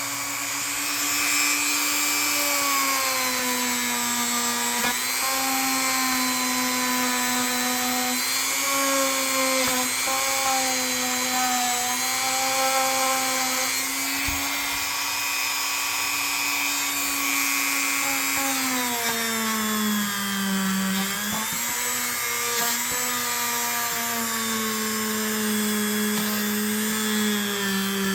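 Small high-speed handheld rotary tool running continuously while cleaning rust off a camp knife, a steady whine that wavers in pitch and sags for a couple of seconds past the middle before picking back up.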